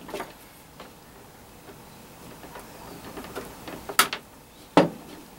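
Light handling of wire and tools on a wooden workbench, with two sharp clicks, one about four seconds in and another just under a second later.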